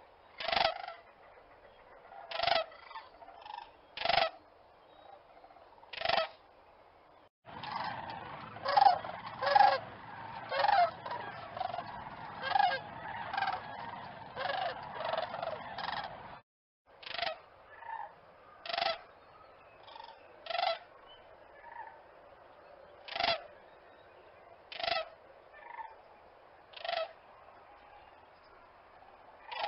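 Cranes calling: short, loud honking calls every second or two. From about seven seconds in there is a denser stretch of many overlapping calls, which cuts off abruptly near sixteen seconds before the single calls resume.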